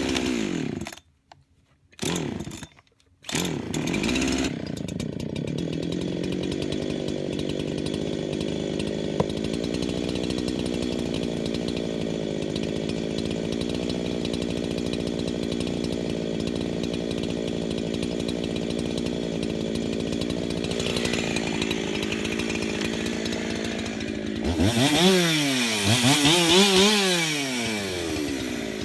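Husqvarna 372XP two-stroke chainsaw being started: it fires briefly twice and dies, then catches and idles steadily. Near the end it is revved up twice and drops back to idle.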